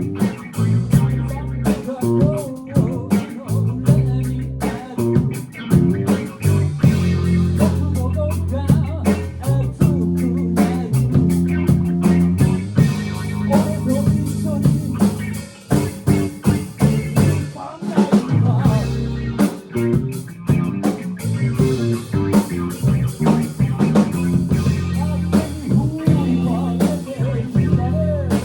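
Rock band playing live: a drum kit with rapid, dense hits, guitar, and heavy low bass notes underneath, loud throughout.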